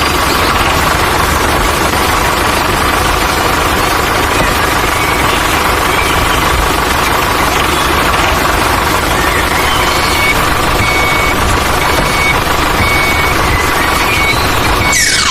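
Cartoon vehicle engine, likely the tractor or truck, running steadily. From about a third of the way in, short evenly spaced high beeps sound faintly over it. It ends in a quick high-to-low swoosh.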